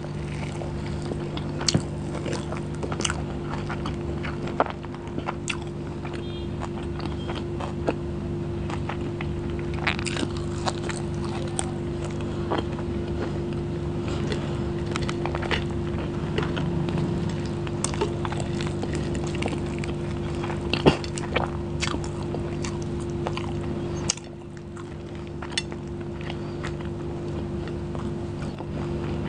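Close-miked eating with the hands: wet chewing and lip-smacking, with sticky squelches as curry-soaked rice and chicken are torn and mixed by hand. Many small sharp clicks sit over a steady low hum, and the hum drops a little about 24 seconds in.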